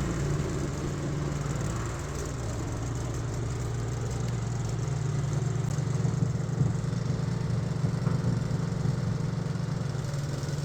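A remote-control mower's 224cc gasoline engine running steadily at an even pace, with a constant low hum.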